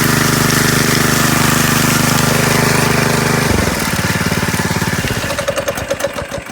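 Petrol engine of a concrete power trowel running steadily, then dropping in speed about three and a half seconds in and winding down to a stop near the end.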